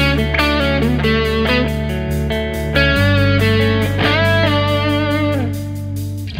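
Electric guitar played through a Valeton Tube Engine overdrive pedal: a lead line of single notes with string bends gliding up and back down about four seconds in. Underneath run sustained low bass notes and a steady ticking beat.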